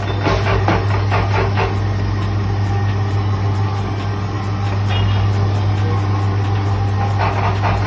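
Electric motor of a dough-sheeting roller machine running with a steady low hum. Light clicks and taps from the dough being handled come over it, busiest in the first two seconds and again near the end.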